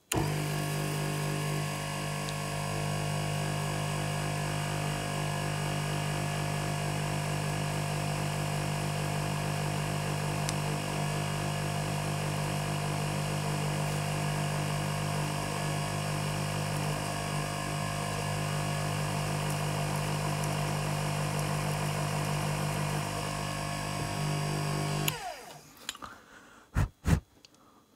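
Small milling machine's spindle running steadily with a low hum while a centre drill spot-drills the boss of a small casting. The motor cuts off suddenly near the end, followed by two sharp clicks.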